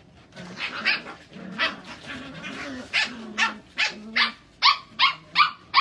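Cocker Spaniel puppies yapping in play: short high-pitched barks, a few scattered at first, then a regular run of about two or three a second from about halfway through.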